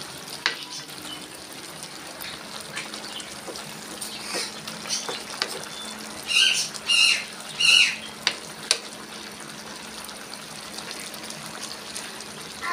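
Coconut-milk stew simmering in a wok, with a wooden spatula clicking and scraping against the pan as the vegetables are stirred. About six seconds in, three loud, high calls in quick succession stand out over the simmering.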